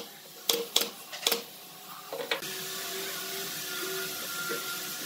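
Pneumatic brad nailer firing nails into pine trim: three sharp shots in quick succession in the first second and a half, and a weaker click a little later. After that a steady hiss.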